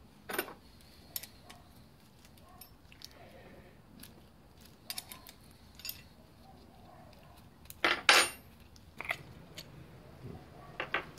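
Scattered light metallic clicks and clinks of hand tools and valve-train parts being handled on a Honda CB750 cylinder head, with the loudest clatter about eight seconds in.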